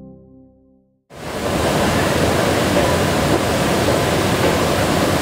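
Soft title music fades out over the first second. After a brief silence, a sudden cut brings in a loud, steady rushing noise of an airport terminal heard from a moving walkway.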